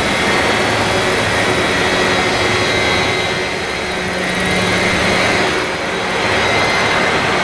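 Radio-controlled scale model helicopter running as it lifts off and hovers: a steady, dense rotor and motor whir with a thin, steady high whine.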